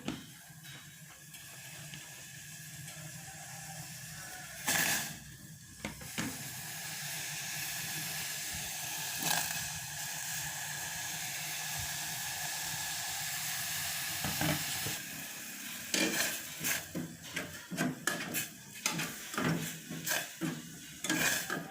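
Water with grated ginger heating in a hot pan on the stove, hissing and sizzling steadily. From about sixteen seconds in, a spoon stirs the mixture, knocking and scraping against the pan in quick irregular strokes.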